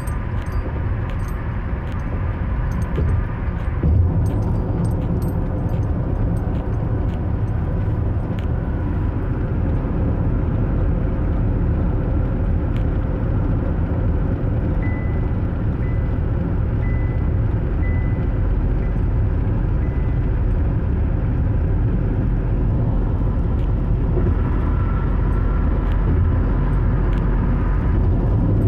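Car in motion heard from inside the cabin: a steady low rumble of tyres on the road and the engine running.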